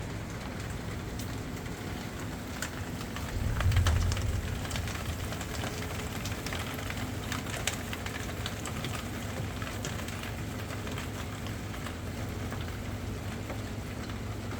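Steady rain falling on a surface, with scattered drips ticking sharply. A low rumble swells briefly about four seconds in.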